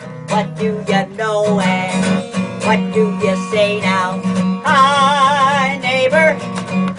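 Acoustic guitar strumming under a wordless yodeled vocal melody, its pitch warbling rapidly from about two-thirds of the way in.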